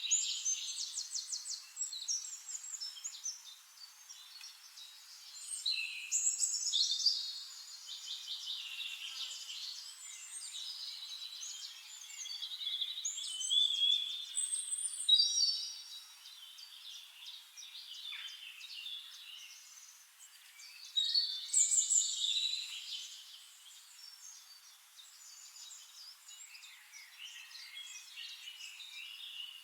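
Dawn chorus of many small birds singing and chirping at once, overlapping high trills, whistles and rapid chirps, with louder bursts of song every several seconds.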